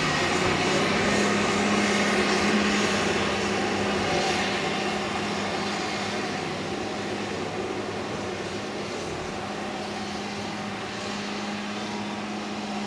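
Steady engine noise with a low hum, slowly fading.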